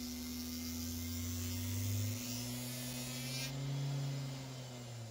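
CNC 3040 spindle's 40-volt brushed DC motor running with a steady electric hum. Its pitch steps up about two seconds in, peaks around four seconds and eases back down near the end, as the motor's speed changes.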